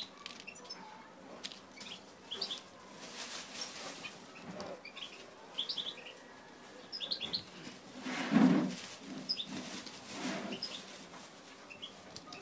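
Zebra finches giving many short, high chirping calls, scattered through the whole stretch. Among them are a few louder rustling bursts, the strongest about eight seconds in.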